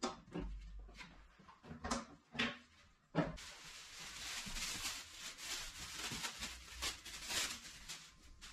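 Clicks and knocks of the Makita LB1200F bandsaw's wheel cover being unlatched and swung open, the loudest knock about three seconds in. It is followed by several seconds of rustling and scraping as a steel bandsaw blade is handled.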